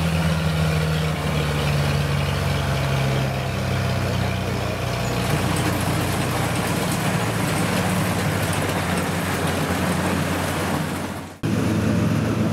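Kubota DC-70 rice combine harvester running steadily under load, its diesel engine droning along with the rushing noise of the cutting and threshing gear. The sound drops out abruptly for a moment near the end, then comes back at the same level.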